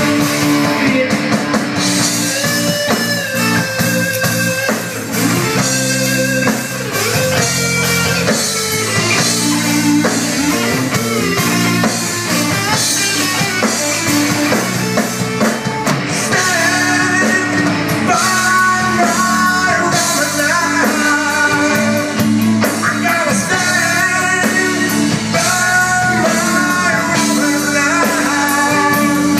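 Live rock band playing on stage through the PA: electric guitars and drum kit under a bending lead melody line, with no sung words.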